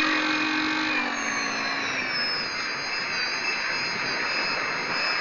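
The UMX Twin Otter micro RC plane's twin electric motors and propellers whining steadily in flight, heard from a camera mounted on the plane's belly, with air rushing past. A lower tone fades out a second or two in, leaving the high whine.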